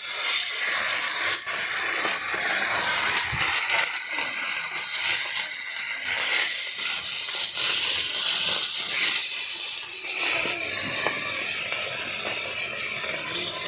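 Rohu fish sizzling steadily in hot mustard oil on a large iron tawa, with a few light scrapes of a metal spatula as the fish are turned.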